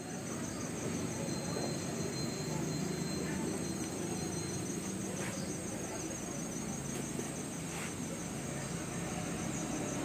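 Insects chirring steadily in high continuous tones, over a low steady background hum.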